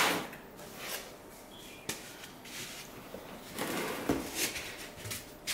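Cardboard box flaps being pulled open and handled. A loud scrape at the start, then quieter rustling, a sharp click about two seconds in, and more rustling and scraping about four seconds in.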